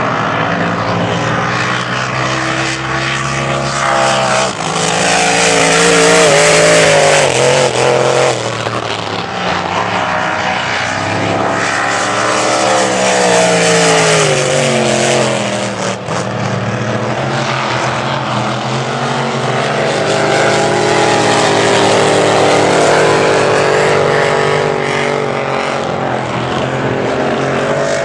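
Displacement-class race boat engines running at high revs, their pitch sliding up and down as the boats pass. The loudest pass comes about six to eight seconds in.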